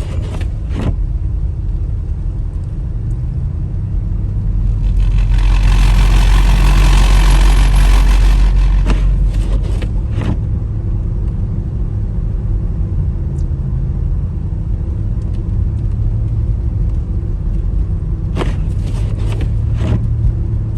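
Car driving: steady engine and road rumble, with a louder rushing swell from about five to nine seconds in.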